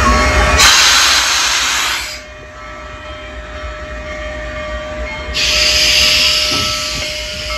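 Union Pacific Big Boy No. 4014, a 4-8-8-4 articulated steam locomotive, rolling slowly past with two loud bursts of hissing steam, one about half a second in and one past five seconds. A steady chord of tones runs underneath.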